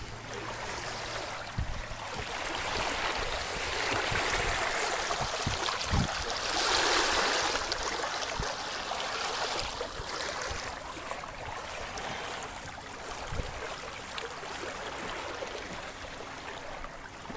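Water rushing and swishing along the hull of a Jeanneau Sun 2000 sailboat under sail, loudest about six to eight seconds in. A few low thumps sound through it.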